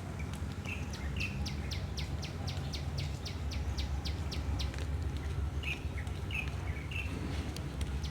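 Birds calling: a fast, even run of sharp high ticking notes, about four or five a second for several seconds, with a few short chirps before and after it, over a steady low rumble.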